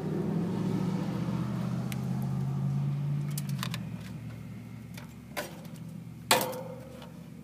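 A steady low hum fades out about three and a half seconds in. Then come a couple of sharp clicks, the loudest with a short ring about six seconds in: an air conditioner condenser's relay clicking in as the thermostat calls for cooling.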